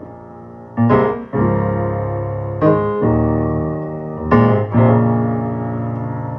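Recorded music played back in the room through large JBL Array 1400 horn loudspeakers: an instrumental piano passage, with chords struck about a second in, just under three seconds in and just past four seconds in, over a strong sustained low bass.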